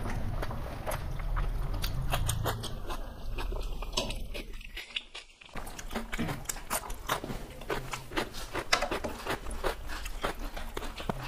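Close-up eating sounds: people chewing mouthfuls of rice and curry eaten by hand, with many quick wet mouth clicks and smacks. The sound briefly drops out about five seconds in.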